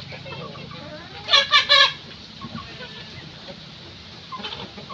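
A flock of chickens clucking, with three loud calls in quick succession about a second and a half in and another softer call near the end.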